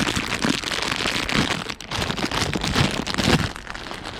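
Heavy rain falling, a dense patter of drops close by, with a few duller thuds mixed in.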